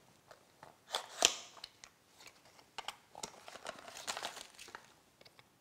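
A small cardboard product box being opened by hand: a couple of sharp clicks from the flap about a second in, then the rustle of the box and the packaging inside being handled.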